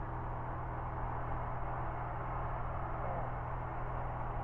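Steady drone of a light single-engine airplane's engine and propeller heard inside the cockpit in cruise flight.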